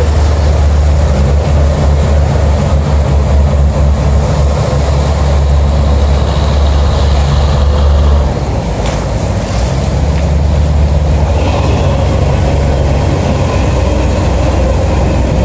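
Boat diesel engine running with a steady low drone, over the rush of water and wind. The drone eases for a moment about eight seconds in, then picks up again.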